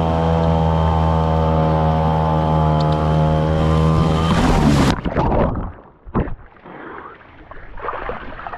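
A small outboard motor running steadily, then about five seconds in it cuts out suddenly as it goes under the water. What follows is muffled, irregular splashing and gurgling. The motor stalls from the dunking in seawater, which later leaves salt crystals blocking its carburetor float bowl.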